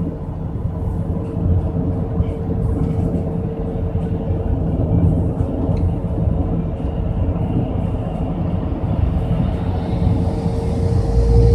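Steady engine and road rumble heard inside a moving highway bus, with a thin steady hum over it; the rumble grows louder near the end.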